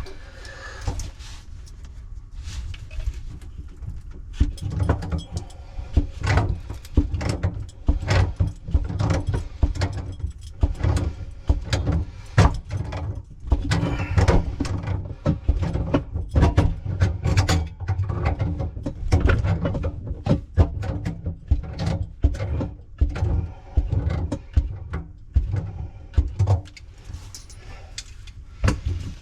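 Metal tools and pipe fittings clinking and knocking in many irregular clicks, with handling noise, as a wrench works a galvanized nipple out of a brass flush valve on an electric tankless water heater.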